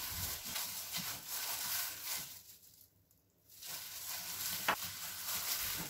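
Plastic-gloved hand rubbing and mixing a crumbly flour-and-ghee mixture in a glass bowl: a soft, dry rustling that cuts out for about a second midway, with a single light tap near the end.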